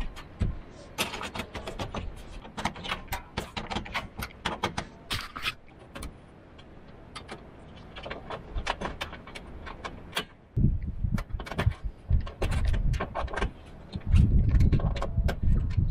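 Sharp metallic clicks and rattles as aluminium solar panel clamps and a small hand tool are worked onto the aluminium mounting rails and panel frame. From about ten seconds in, loud low rumbling and knocking takes over, louder again near the end.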